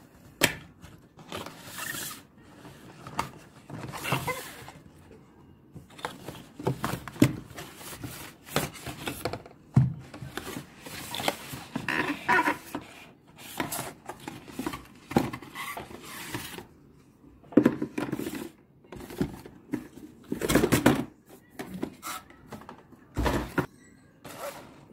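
Small cardboard boxes being handled, slid and set down on a wooden table, with irregular rustling, scraping and soft knocks and one louder thump near the end.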